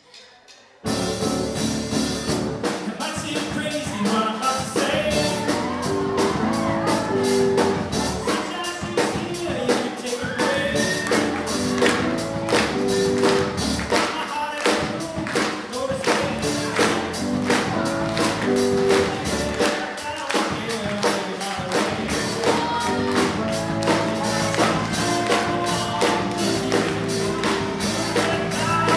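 Live band of drum kit, acoustic guitar and keyboard playing a song with a steady drum beat, starting abruptly about a second in.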